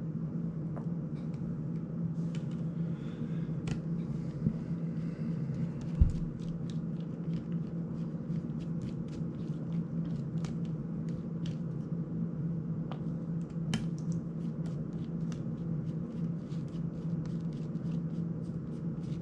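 Small clicks and ticks of a precision screwdriver and fingers working the tiny screws of a plastic drone prop guard, coming more often in the second half, over a steady low hum. One dull thump about six seconds in.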